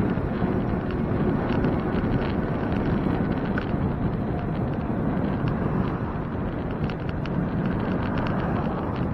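Steady wind rumble on the microphone of a camera carried on a moving bicycle, with faint light ticks scattered through it.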